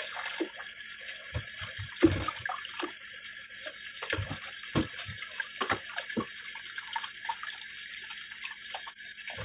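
Kitchen tap running into a sink while kiwifruit are rinsed by hand, with irregular splashes and light knocks of fruit against the sink.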